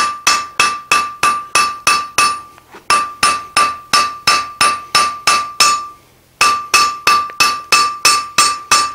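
Blacksmith's hand hammer striking red-hot flat steel on an anvil, drawing the spoon bowl out thin. The blows come about three and a half a second, each with a clear ringing tone from the anvil, and there are two short pauses, one near the third second and one just after the sixth.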